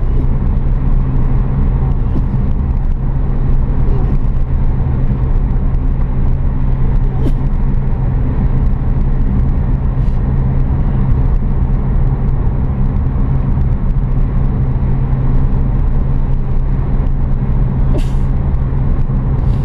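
Car driving at a steady pace, its engine and road noise making a loud, even drone. A few brief clicks sound over it, the clearest near the end.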